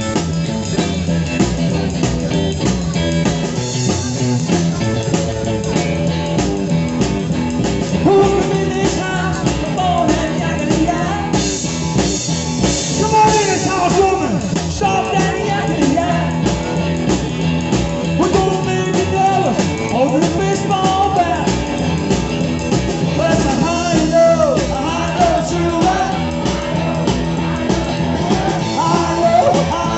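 Live rock and roll band playing, with electric guitar and drum kit; singing comes in about eight seconds in and carries on over the band.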